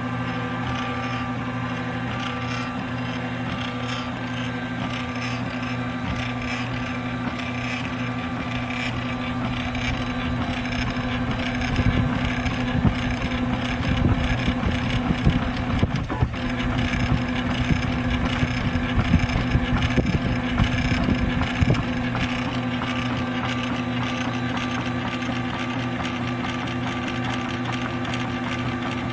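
MendelMax 3D printer's stepper motors running as it prints, a steady hum and whir. For several seconds in the middle the motor noise gets louder and more uneven, with quick irregular pulses, then settles back to the steady hum.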